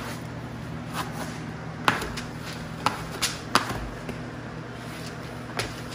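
Scattered sharp taps and clicks as hands and a plastic wallpaper smoother work cork wallcovering against the wall, about six in all at uneven intervals, over a steady low hum.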